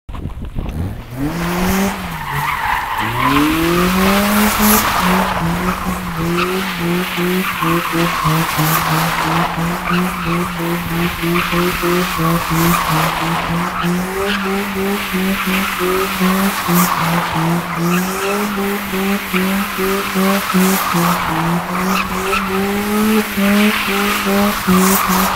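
BMW E36 318is four-cylinder engine revving up twice near the start, then held at high revs while the car does donuts, its rear tyres squealing and skidding on the pavement; the welded differential locks both rear wheels together so they spin and slide as one.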